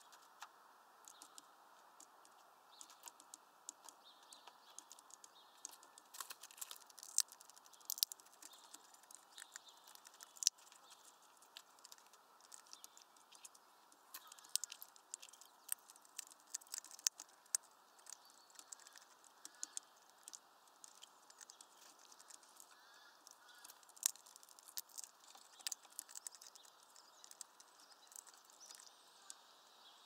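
A hawfinch pecking and cracking seeds at a feeder: irregular sharp clicks and taps, bunched in spells, with the loudest single crack about ten seconds in.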